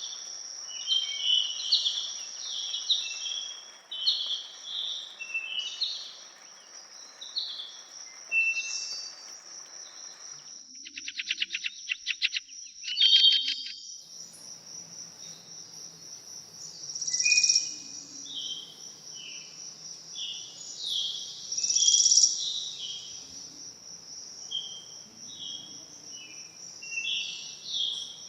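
Forest songbirds singing short, repeated phrases over a steady, high insect drone. About ten seconds in, a rapid rattling trill runs for roughly three seconds.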